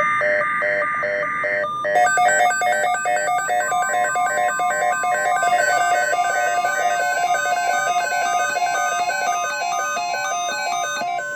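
NOAA Weather Radio emergency alert: a short burst of screeching digital data tones, then from about two seconds in rapid pulsing electronic alarm beeps, joined by a steady alert tone. This signals the start of a new alert message, here a severe thunderstorm watch.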